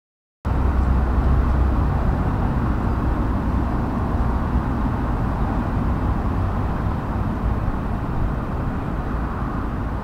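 Steady outdoor background noise, mostly a low rumble with a hiss above it, cutting in abruptly about half a second in.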